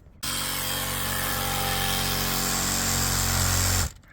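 A handheld power tool's electric motor runs at a steady speed for about three and a half seconds, starting and stopping abruptly.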